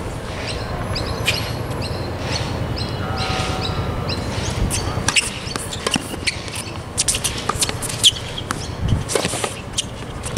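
Tennis rally on an outdoor hard court: sharp racket-on-ball hits and quick clicks and scuffs of shoes on the court, packed into the second half. Birds chirp briefly in the first few seconds, over a low steady background hum.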